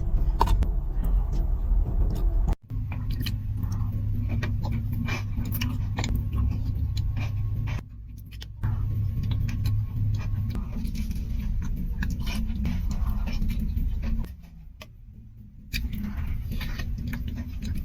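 Close-miked eating sounds: small clicks and crunches of chewing and handling food over a steady low hum. The sound cuts off abruptly several times.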